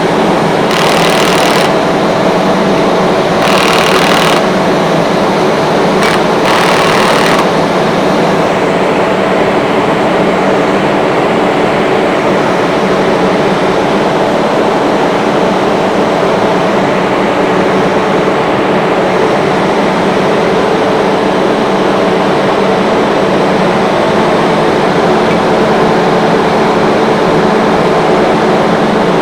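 Rotary screw air compressor running: a loud, steady drone with a low hum under it. A few short bursts of hiss come in the first several seconds.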